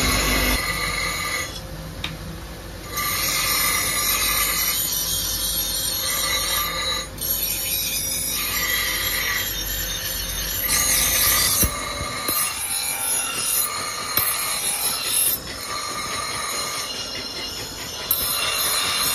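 Abrasive grinding wheel grinding the edge of a steel axe head: a high screeching grind with squealing tones that come and go every second or two as the blade is pressed to the wheel and moved across it.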